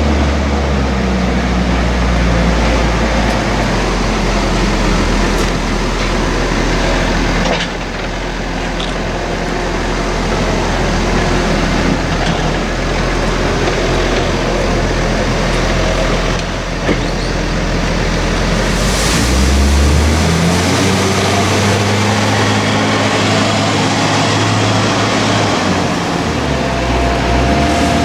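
Heavy farm diesel engine running under load, loud and steady, with its note rising about two-thirds of the way through and settling back down near the end.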